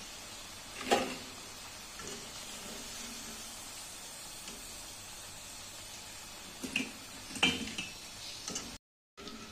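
Batter-coated potato cubes deep-frying in hot oil in a kadai, a steady sizzle, with the wire spider skimmer clinking against the pan once about a second in and several times near the end as fried pieces are scooped out.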